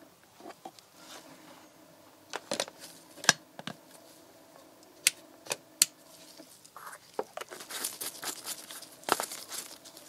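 Plastic oil bottle and jug handled by gloved hands: a series of sharp plastic clicks and knocks, then rustling and crinkling in the last few seconds, over a faint steady hum.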